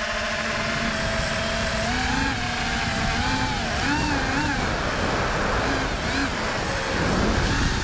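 FPV quadcopter's brushless motors whining, the pitch rising and falling with throttle as it banks and dives, over a heavy rush of wind and prop wash on the onboard microphone. Near the end the pitch drops and the rushing swells.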